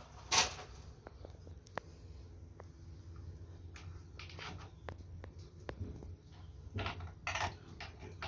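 Handling noise from working on wiring and parts: a short scraping burst, several sharp clicks and scattered rustles, over a low steady hum.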